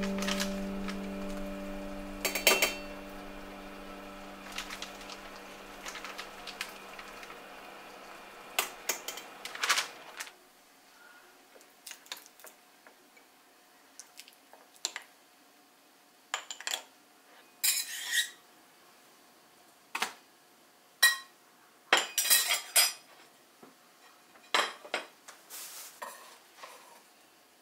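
Metal spoon clinking and scraping against a small ceramic dish and glass food containers, in scattered separate strikes with a few short clusters of clatter in the second half.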